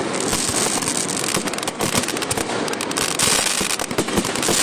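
Aerial fireworks bursting: a dense run of bangs and rapid crackling pops, many shells going off in quick succession.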